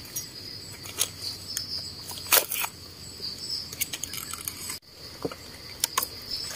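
A steady, high-pitched chorus of forest insects, with scattered clicks and rustles as a knife trims the stems of freshly picked mushrooms among dry leaves. The sound breaks off for a moment a little before the end.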